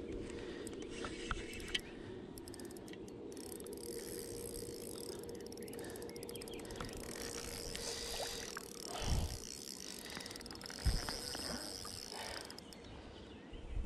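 Spinning reel being wound while playing a hooked catfish on a light rod, a steady mechanical whirr, with two dull knocks about nine and eleven seconds in.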